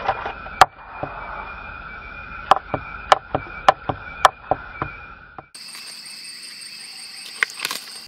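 Sharp, irregular clicks and taps of bamboo sticks and plastic spatulas being handled while a spatula bird trap is set, about a dozen in all, most in the first five seconds and a few near the end. They sit over a steady high-pitched background drone that shifts higher about five and a half seconds in.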